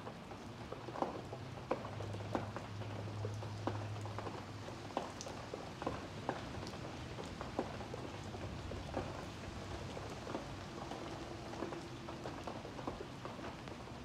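Rain falling, a steady hiss with single drops landing as sharp, irregular ticks about once a second. A low hum sounds under it and fades about five seconds in.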